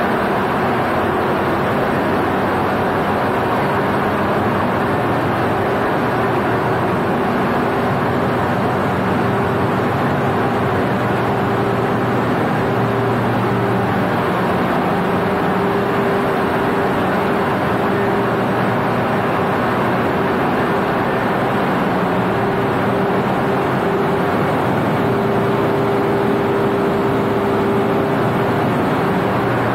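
Large marine diesel engines running in a ship's engine room: a loud, steady machinery drone with a constant hum that does not change.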